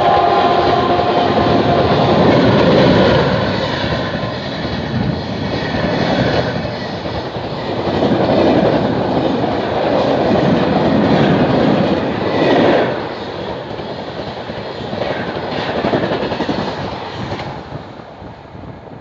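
Coaches of an express train running past at speed: a loud rushing rolling noise with wheels clattering over the rail joints, surging and easing as the coaches go by, then falling away as the last coach passes near the end.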